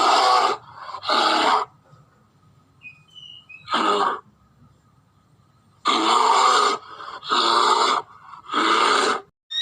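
Bear growling: six rough calls of about half a second to a second each, with short pauses between them.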